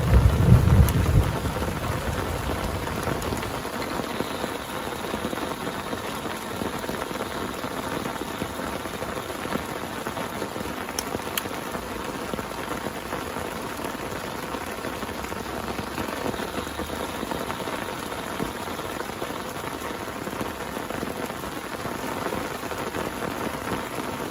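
Heavy rain pattering steadily on a surface, with the tail of a low thunder rumble dying away about a second in.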